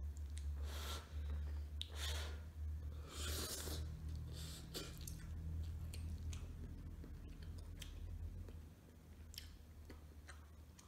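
Slurping instant noodles in three long sucks over the first four seconds, then chewing with small wet clicks of the mouth. A steady low hum underneath stops about nine seconds in.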